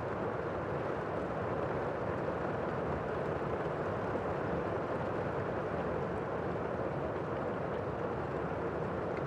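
Strong tornado wind blowing steadily: a dense, unbroken rushing noise with no rises or breaks.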